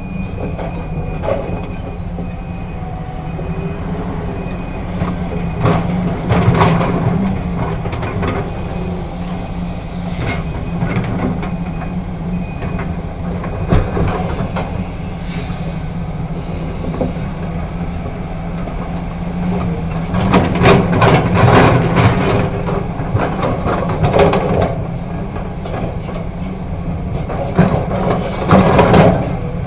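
Hitachi excavator's diesel engine running steadily, with repeated bouts of loud clattering and banging every few seconds as it digs and loads a dump truck.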